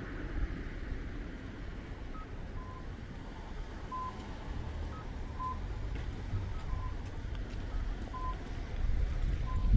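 An electronic beeper sounds a short, even tone about every one and a half seconds, six times, with a fainter, slightly higher beep now and then, over a steady low rumble.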